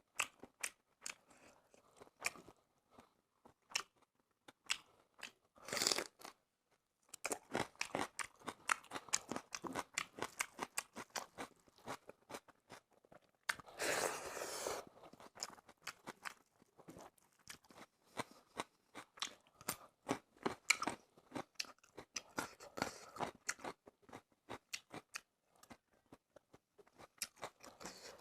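Close-miked eating of fish curry and rice: steady chewing and crunching with many small wet mouth clicks, with two longer, noisier bursts about six seconds in and about halfway through.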